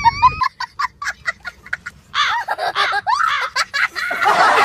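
A person laughing, first in a quick run of short stifled bursts, then breaking into fuller, higher laughter about two seconds in.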